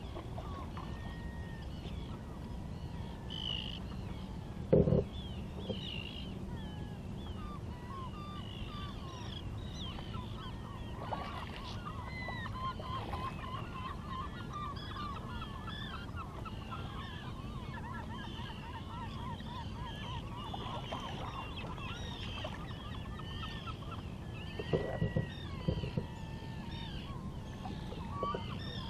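A flock of birds calling continuously, many short wavering calls overlapping, with a fast run of chattering calls in the middle, over a steady low rush of wind and water. A sharp knock sounds about five seconds in, and a few more come near the end.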